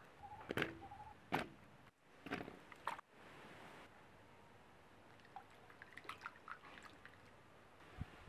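Water splashing in a clay pot as cut cassava pieces knock into it, four short splashes in the first three seconds, then a quiet stretch with a few faint ticks.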